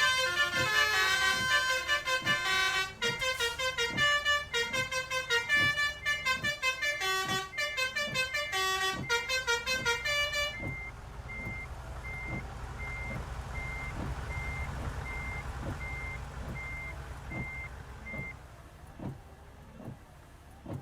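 Basuri telolet multi-tone bus horn playing a fast melody of changing notes, cutting off about ten seconds in. The bus engine then runs low and steady under a faint short beep that repeats evenly for several seconds.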